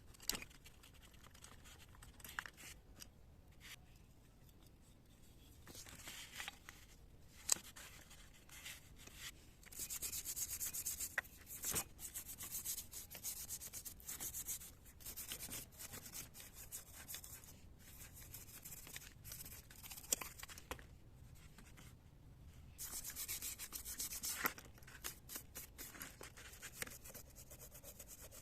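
Rubbing and scraping by hand on carburetor parts, in quick repeated strokes with scattered clicks and taps between them; two longer, louder stretches of strokes come about a third of the way in and again near the end.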